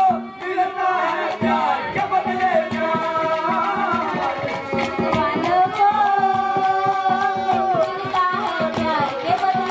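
Live Haryanvi ragni music: a wavering melody with sliding notes over a steady beat of hand drums and a clay pot played as a drum.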